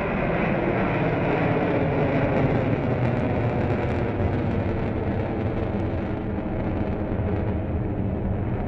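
Jet engines of four F/A-18 Hornets flying overhead in diamond formation: a loud, steady jet rush whose pitch slides down at the start and grows deeper and duller toward the end as the formation moves away.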